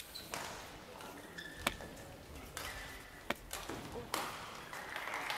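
Badminton rally: sharp racket strikes on the shuttlecock, four of them roughly one and a half seconds apart, with brief squeaks of shoes on the court floor. Crowd applause starts to swell near the end.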